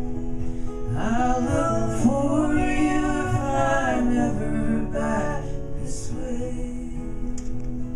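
Acoustic folk music closing out a song: strummed acoustic guitar chords, with a melody line over them from about a second in to about five and a half seconds in, after which the guitar chords ring on.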